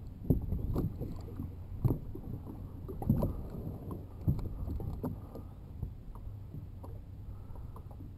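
A Feelfree Lure 11.5 plastic sit-on-top fishing kayak being launched from the shallows: irregular knocks and bumps on the hull as it is boarded and pushed off, over a low steady rumble.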